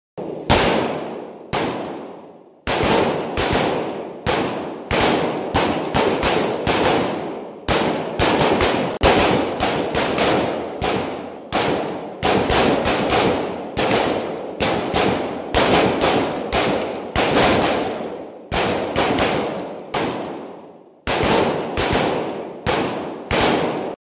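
Rifle fire from several shooters on a firing range: irregular, often overlapping single shots, several a second at times, each echoing off before the next.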